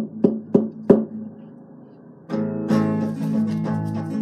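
Acoustic guitar played alone. Sharp, percussive strummed strokes come about three a second and stop about a second in. The chord rings down quietly, then full strumming starts again a little after two seconds.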